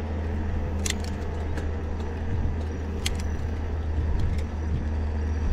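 Steady low hum of a running motor vehicle engine, with a few sharp light clicks.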